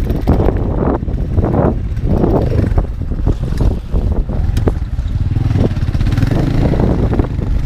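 A motor vehicle running on the move, with heavy wind buffeting on the microphone.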